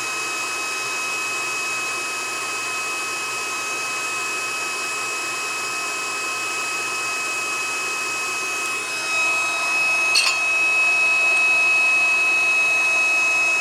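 Handheld induction heater running: its cooling fan with two steady high-pitched whines over it. About nine seconds in it grows louder and the higher whine stronger, with a brief click just after.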